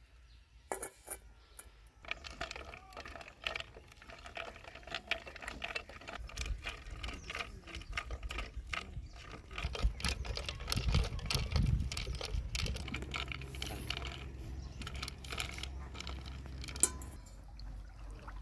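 Water splashing and dripping in a steel bowl as lumps of white bait are dipped in it, amid many small irregular clicks and knocks of handling. A low rumble runs through the middle, and a single sharper knock comes near the end.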